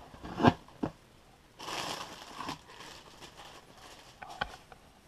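Clear plastic wrapping crinkling and a cardboard box rustling as hands handle a plush toy packed inside. Two sharp knocks come in the first second, then a longer stretch of crinkling and scattered small crackles.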